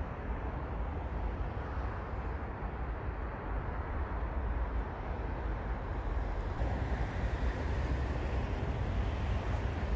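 Steady outdoor ambient noise: a continuous low rumble with no distinct events.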